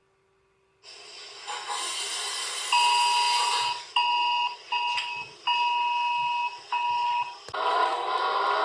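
Emergency alert broadcast tone: static hiss builds from about a second in, then five alarm beeps of uneven length sound over it. A click and a stretch of rougher distorted noise follow near the end.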